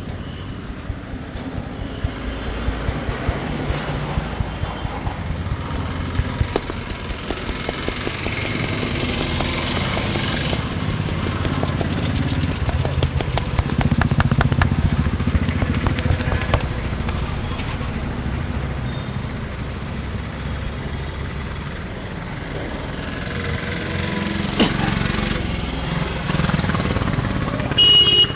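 Street traffic with motorcycle engines running, a steady low rumble. Over it comes a long run of quick, light taps from about two seconds in until past the middle, and a short high tone near the end.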